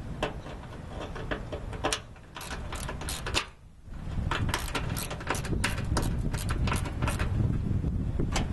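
Irregular sharp clicks of hand tools working the screws on a car's body panel, some in quick runs of several clicks a second, over a low rumble of wind on the microphone.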